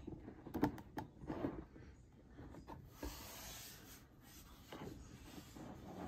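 Faint handling noise of 3D-printed plastic parts being lined up and fitted together: a few sharp clicks in the first second, then soft rubbing and scraping of plastic on plastic.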